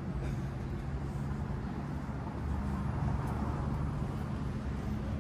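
Steady low mechanical drone of city background noise, a little weaker for a couple of seconds before returning.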